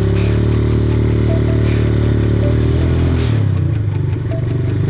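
ATV engine running as the machine is ridden over a dirt track, its note shifting about three seconds in, with some clatter from the bouncing vehicle.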